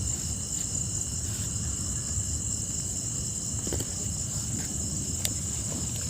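Night insects chirring steadily in a high, even drone, over a low rumble, with one sharp click about five seconds in.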